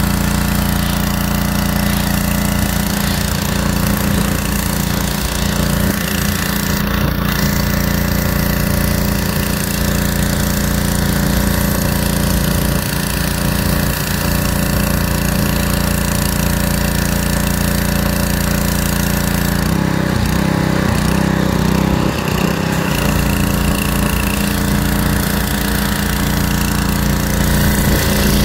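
Pressure washer running steadily: a constant machine drone under the hiss of the water jet spraying the car's paintwork. The drone's note wavers for a few seconds about two-thirds of the way through.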